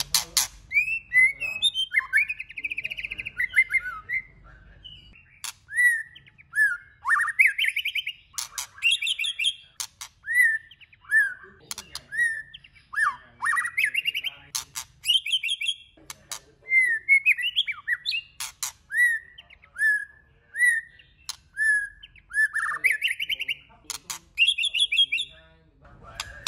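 White-rumped shama singing a varied song of short, clear whistled phrases, many rising or swooping in pitch, with sharp clicks mixed in between the phrases.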